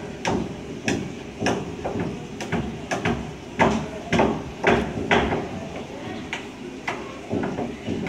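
Budgerigar nestlings giving short raspy begging chirps, about two a second, loudest near the middle, over a steady low hum.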